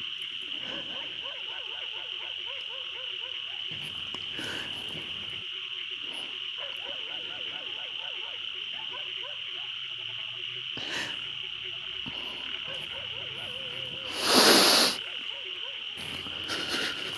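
Night ambience of crickets or insects chirring steadily and frogs croaking. About fourteen seconds in, a short, loud rush of noise lasting under a second stands out above it.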